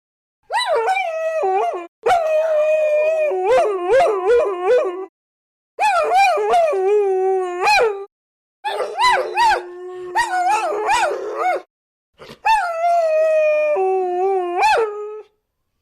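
Dogs howling and whining in five spells, each about two to three seconds long and separated by brief silences. The pitch wavers and swoops up and down, and at times a steady held note sounds under a second voice that bends in pitch.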